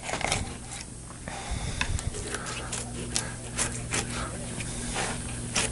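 A largemouth bass being turned over and cut with a fillet knife on a plastic cutting board: a series of short scrapes and clicks as the blade works in behind the head toward the backbone. Under it, a steady low hum from about a second in until near the end.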